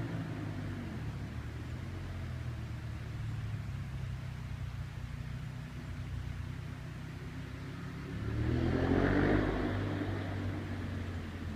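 Ducati 1098S's Testastretta L-twin engine idling with a steady low beat, then revved once by a throttle blip about eight seconds in, rising and falling back to idle within about two seconds.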